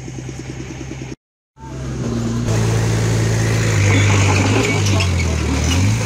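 Diesel engine running steadily, broken by a brief dropout about a second in; after it a louder diesel engine runs, its pitch dipping and rising again a few times.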